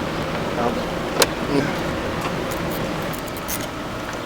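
Dodge Caliber SRT-4's turbocharged 2.4-litre four-cylinder idling steadily but not right: the owner says it sounds like something is not working correctly with the motor. A single sharp click comes about a second in.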